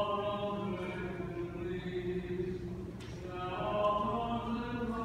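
Voices singing Byzantine liturgical chant in long held notes, with a new phrase beginning about three seconds in.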